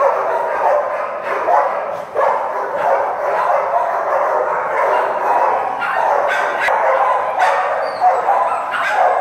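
Many kenneled dogs barking and yipping at once, a continuous din with no break.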